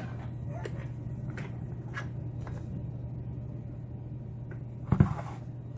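Faint scattered clicks of small tools and objects being handled on a workbench, with one sharper knock about five seconds in, over a steady low hum.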